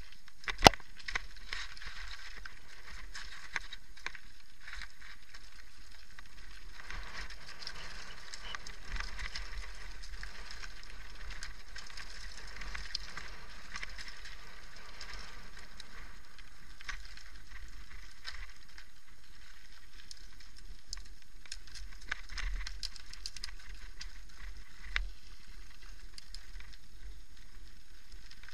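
Mountain bike rolling fast down a stony dirt trail: tyres running over gravel and loose stones, with steady rattling and scattered knocks from the bike over the bumps, and one sharp knock about a second in.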